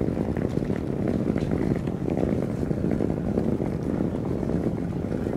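Wind buffeting the camera microphone during an outdoor walk: a steady, loud rumbling noise with a few faint ticks above it.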